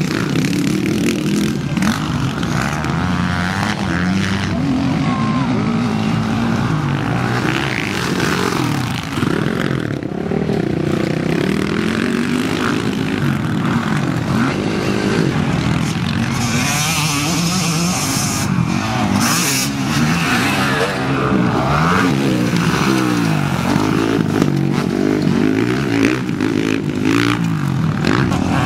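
Motocross bikes' engines revving on the track, several at once, the pitch rising and falling as the riders open and close the throttle.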